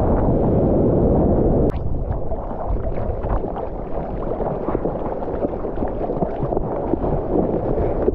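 Seawater rushing and splashing right against an action camera at water level. A dense rush of breaking whitewater cuts off with a click about two seconds in, and gives way to choppy sloshing and small splashes as the surfer paddles.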